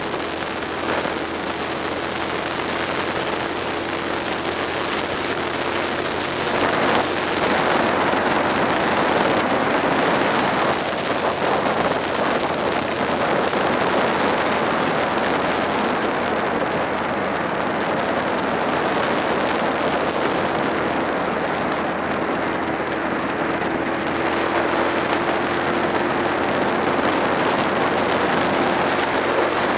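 Wind rushing over the microphone on a moving Suzuki SV650 motorcycle, with its V-twin engine running steadily underneath at cruising speed. The loudness rises slightly around six or seven seconds in.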